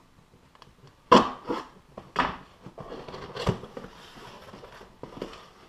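Cardboard box being cut open and its flaps pulled back: several sharp rips and scrapes of packing tape and cardboard, the loudest about a second in, with rustling between.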